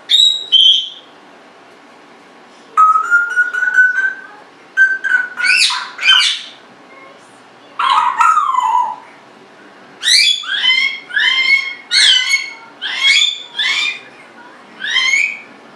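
Congo African grey parrot whistling: a string of separate whistles, including a held, slightly rising tone, one long falling whistle, and near the end a run of about seven quick whistles that each sweep upward.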